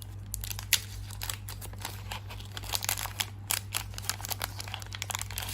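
Irregular small plastic clicks and taps as a needle cartridge is handled and fitted onto a Dr. Pen M8 microneedling pen, over a steady low electrical hum.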